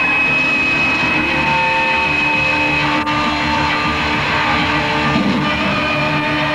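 Live rock band playing loud, distorted electric guitars over drums, with long held notes ringing on top. There is a brief dropout in the sound about three seconds in.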